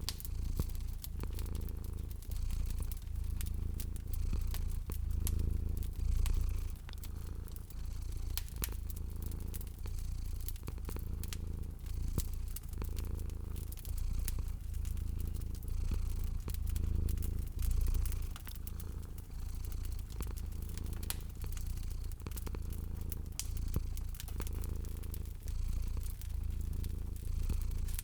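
A cat purring in a low rumble that swells and eases with its breathing, over a wood fire crackling with frequent small pops.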